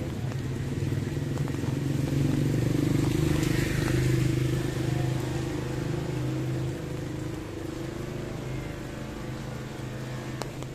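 A motor vehicle engine running close by on the street. It grows louder over the first few seconds, is loudest around four seconds in, then fades as it moves away.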